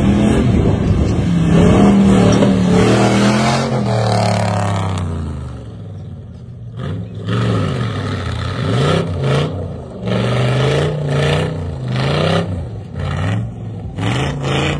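Off-road truck's engine revving hard under load as it climbs a steep dirt obstacle. It holds high for a few seconds, drops off, then surges up and down in short bursts about once a second as the throttle is worked.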